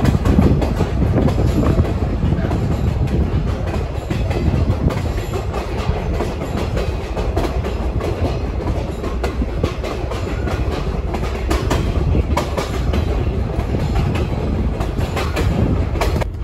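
Riding in a moving former Union Pacific caboose: a steady low rumble with irregular clicks from the wheels on the rails.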